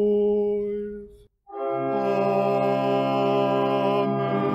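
A single voice intoning the close of a collect on one steady note, then after a short break a sustained sung 'Amen' chord, moving to a second chord near the end.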